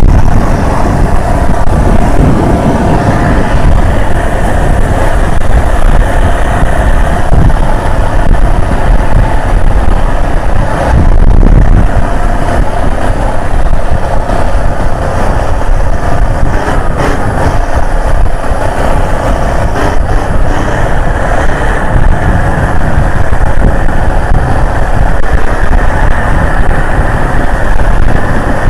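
Boat engine running steadily under way, with water rushing past the hull: one loud, continuous drone.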